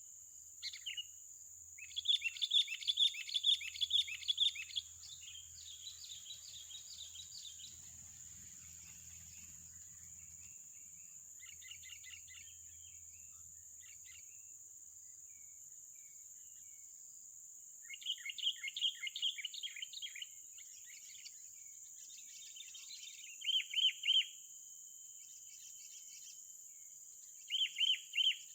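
A bird calling in bursts of rapid, repeated chirps, a few seconds long and several seconds apart, over a steady high-pitched drone.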